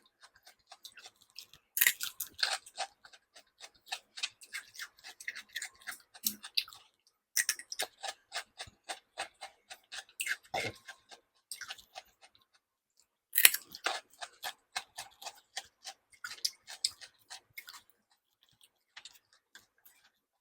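A person chewing food close to the microphone with wet, smacking mouth clicks, in three bouts separated by short pauses; the loudest bout begins about two-thirds of the way through and the chewing turns faint near the end.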